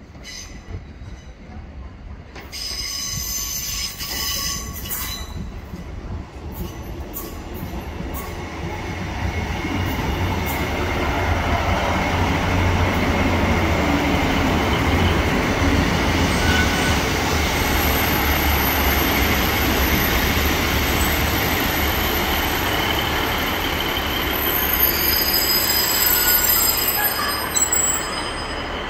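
A real Northern Class 156 diesel multiple unit running past along the platform, its rumble of engines and wheels building over the first ten seconds and then holding steady. High wheel squeal comes and goes, strongest near the end.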